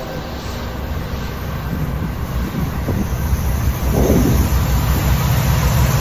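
Diesel freight locomotives approaching, a steady low engine and rail rumble that grows louder about four seconds in, between blasts of the horn.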